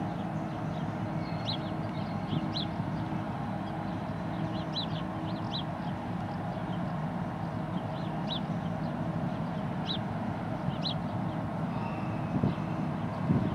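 Steady low drone of a passing container ship's engines, with a constant hum running through it. Over it a small bird chirps on and off, and there are a couple of short thumps near the end.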